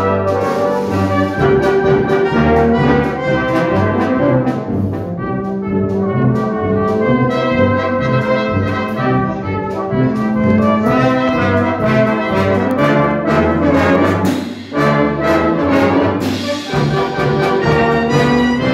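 Brass band playing a piece in harmony: cornets, trombones, euphoniums and tubas together, the low brass moving underneath. The sound dips briefly about fifteen seconds in, then the full band comes back in.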